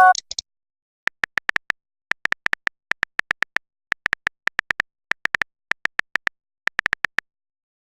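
Phone on-screen keyboard clicking in quick runs of four to six taps, about once a second, as a message is typed. A short notification chirp sounds right at the start.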